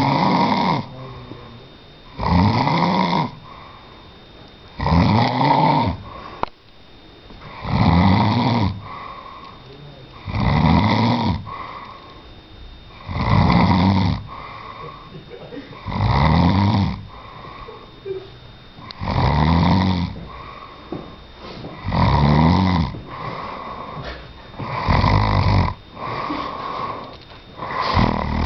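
A man snoring loudly and steadily, one snore about every three seconds. Each snore lasts about a second and rises and falls in pitch, with quieter breathing in between.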